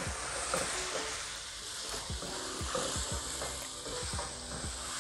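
Wooden spatula stirring soya chunks with tomato and potato masala in a pot, scraping and knocking against the pot again and again over a steady sizzle.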